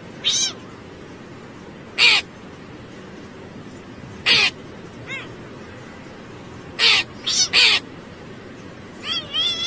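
Crow cawing: several short, harsh caws a couple of seconds apart, with softer chirping calls between them and a quick run of chirps near the end.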